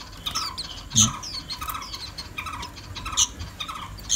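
Caged white-eyes chirping in a quick run of short, downward-slurred notes, several a second, with a few louder, sharper notes among them.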